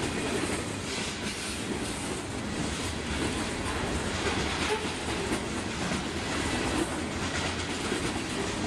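Freight train cars rolling past: a steady rumble of steel wheels on the rails, with clicking as the wheels cross rail joints.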